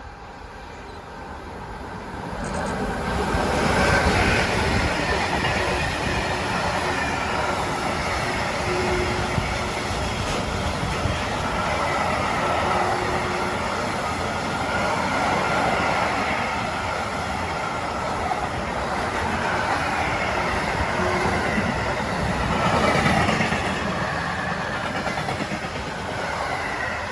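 A train passing close by on the track. Its noise builds over the first few seconds, then stays loud and steady for more than twenty seconds as the cars roll past.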